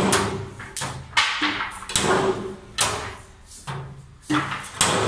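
Stud-welder dent puller with a slide hammer working a dent out of a steel car door skin: a series of sharp knocks and clacks, about one every half second to a second, with a short buzz after some of them.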